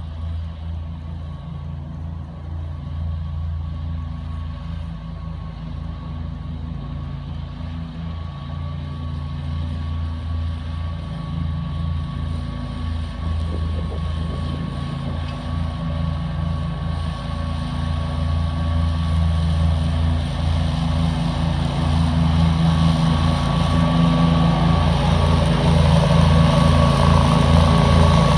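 Dixie Chopper zero-turn lawn mower engine running steadily with a deep hum, growing gradually louder.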